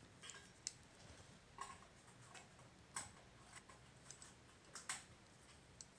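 Near silence with faint, irregular small ticks of a metal crochet hook working cotton thread as chain stitches are made.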